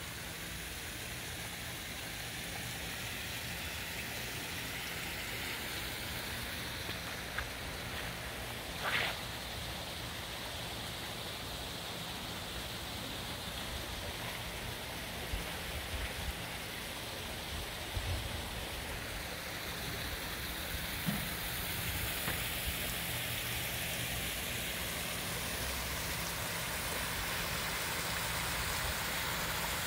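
Steady rush of water from a landscaped waterfall feature, with a few brief knocks.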